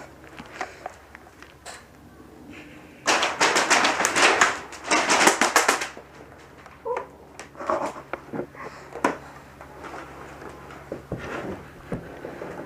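Two bursts of rapid full-auto airsoft gunfire, the first about a second and a half long and the second about a second, followed by a few scattered single clicks.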